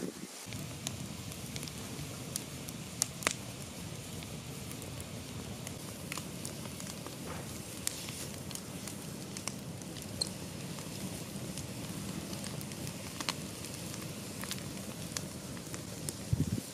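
Wood campfire burning: a steady rushing noise with scattered sharp crackles and pops, a louder pop about three seconds in.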